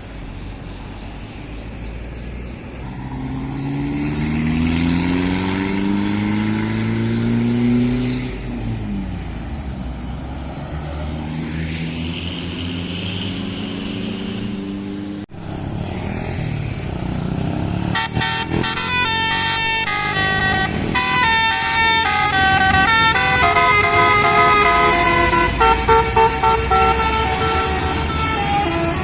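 A tour bus's engine rises in pitch as it pulls away and accelerates, then breaks off suddenly about halfway through. From about 18 seconds a Basuri multi-note 'telolet' bus horn plays a quick melody of changing notes to the end.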